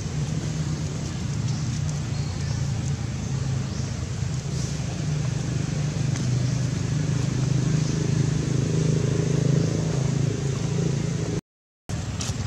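Steady low engine-like hum, growing a little louder past the middle and cutting out briefly near the end.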